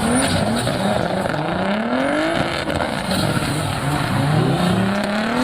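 Race car engines revving, one rising engine note after another, overlapping.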